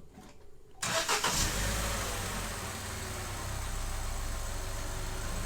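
Vauxhall Corsa E's 1.4 Ecotec four-cylinder petrol engine starting: it catches about a second in, revs up briefly, then settles to a steady idle. It runs with the MAF sensor unplugged, on an engine that has been logging misfire and lean-mixture codes.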